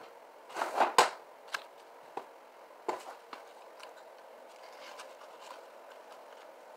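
Eating sounds: short mouth clicks and rustles, bunched together about a second in, then a few single clicks before it goes quiet.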